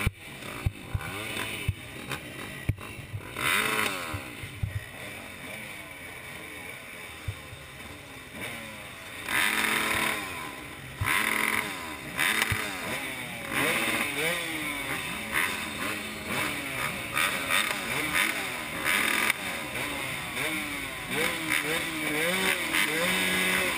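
Several motocross bikes idling at the start line, their throttles blipped again and again so the engine pitch keeps jumping up and falling back, with the blips coming thick and fast in the second half.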